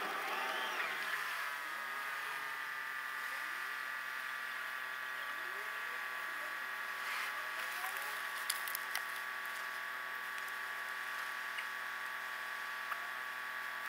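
Car engine idling while stopped at a junction, sped up sixfold so it comes out as a steady, high, many-toned hum. The driving noise fades in the first second or two as the car comes to a halt.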